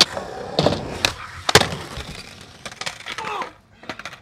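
Skateboard clattering on concrete: a series of sharp cracks and slaps of the board hitting the ground, the loudest about a second and a half in, with fainter knocks near the end.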